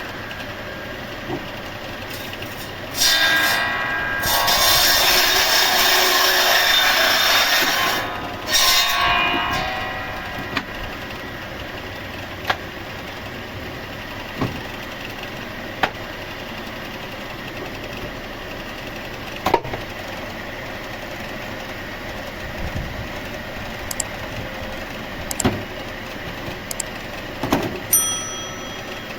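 Sawmill saw and machinery running steadily. About three seconds in the saw cuts loudly through wood for about five seconds, with a second, shorter cut just after. Scattered sharp knocks and clacks follow.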